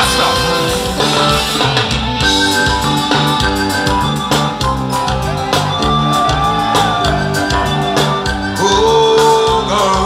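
Loud live music through a concert sound system, with a steady beat and a singer's voice over it.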